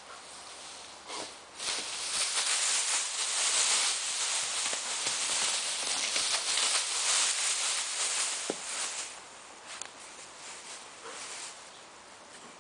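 Dry ornamental grass rustling and swishing as a Borzoi puppy thrashes and rolls through the clump. It is loud and busy through the first part, then drops to lighter, scattered rustles about nine seconds in.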